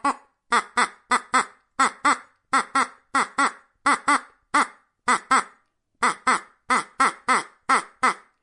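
Ducks quacking: a rapid run of short, nasal quacks, about three a second, often in pairs or threes.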